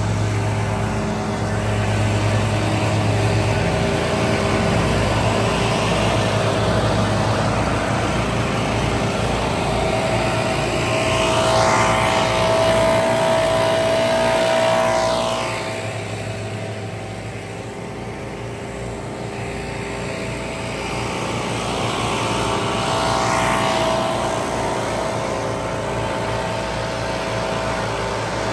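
Several gas-powered leaf blowers running together: Stihl backpack blowers and a wheeled walk-behind blower, a steady engine note with a rushing of air. The pitch swells and falls a few times as throttles change, with a quieter stretch a little past the middle.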